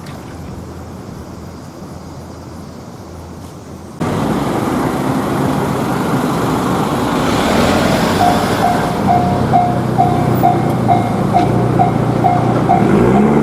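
Japanese railroad crossing bell ringing its repeated 'kan-kan' at about two strikes a second over the rumble of a train. The louder noise starts suddenly about four seconds in, and the bell comes in about eight seconds in.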